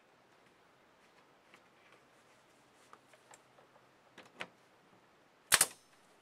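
Pneumatic pin nailer run off an air compressor, firing into wooden trim on the table edge: one sharp, loud double crack about five and a half seconds in, after a few small clicks of handling the tool and trim.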